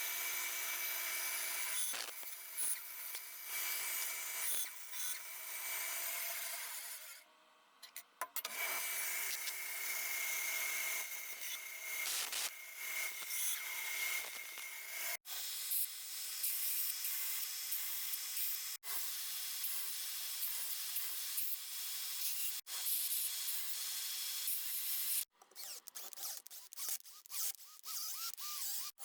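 A small power tool's motor running steadily in a woodshop, with the sound breaking off abruptly several times where the shots change.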